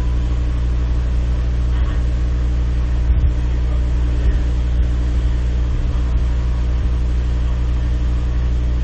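Steady low machine hum with several fixed pitches, unchanging throughout.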